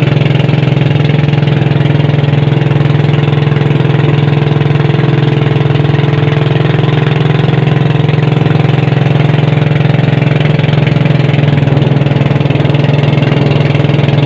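Small boat's engine running steadily under way, a loud, even engine note with a strong low hum.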